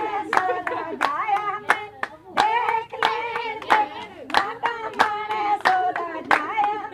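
Women singing together with hand claps keeping time, a sharp clap every third of a second or so under the song.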